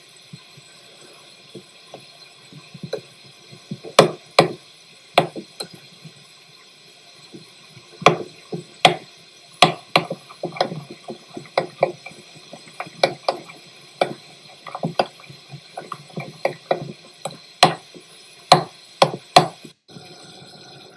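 Metal spoon stirring a thick yogurt-mayonnaise sauce in a ceramic bowl, clinking and knocking against the bowl's side at irregular intervals, several knocks coming in quick runs.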